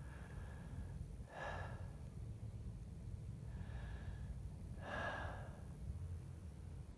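A person breathing heavily and slowly while lying down: two long breaths about three and a half seconds apart, each carrying a faint whistle, over a steady low rumble.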